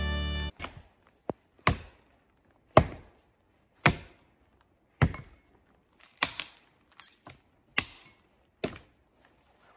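Hatchet chopping into wood: a series of sharp blows, roughly one a second, some in quick pairs.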